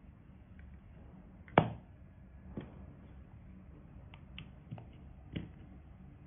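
Handling clicks on a plastic earbuds charging case: one sharp click about one and a half seconds in, then several lighter clicks and taps as a USB-C cable is fitted into its port.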